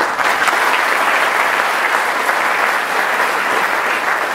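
Audience applauding, many hands clapping at once in a steady wash that begins to die down near the end.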